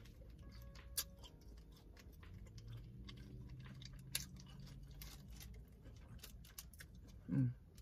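Quiet close-up chewing of food with scattered small clicks and crinkles from paper wrappers being handled. A short hummed sound comes near the end.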